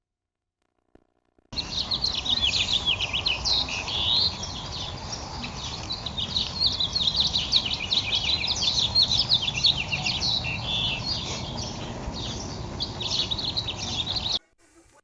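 Many small birds chirping in a dense, busy chorus over a low steady rumble. It starts about a second and a half in after near silence and cuts off suddenly near the end.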